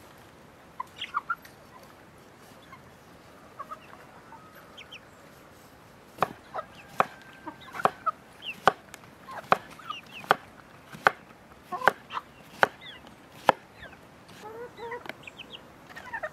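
A kitchen knife chopping cucumber on a wooden cutting board: about ten sharp knocks, one every second or so, starting about six seconds in. Chickens cluck now and then in the background.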